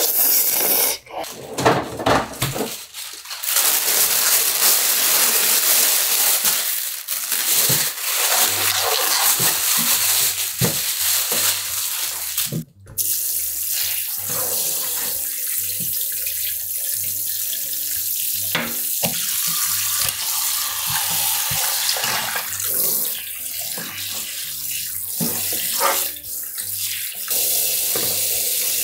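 A few seconds of slurping as noodles are eaten, then tap water running hard into a stainless steel sink, splashing over a whole raw chicken as gloved hands rub and rinse it.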